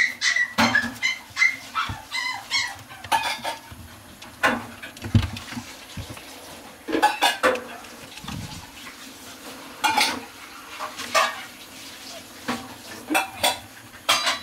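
Puppy giving a quick series of short, high-pitched yips or whimpers in the first few seconds, followed by scattered clicks, taps and rustles as it moves about the pen.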